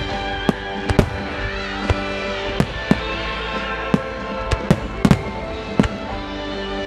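A starmine of aerial firework shells bursting in an irregular run of about ten sharp bangs, spaced roughly half a second to a second apart. Under them plays the display's music, with long held notes.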